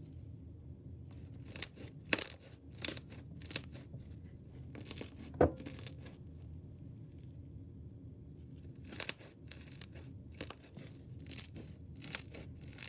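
Foam-bead slime being squeezed and played with, giving scattered crackling clicks and pops in two runs, with one louder knock in between.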